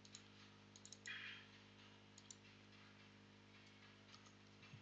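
A handful of faint, scattered computer mouse and keyboard clicks over a low, steady electrical hum.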